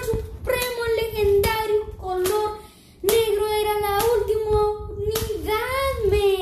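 A young voice singing long, held wordless notes, with a pause partway through and a falling slide in pitch near the end. Clicks of hands handling a package sound alongside.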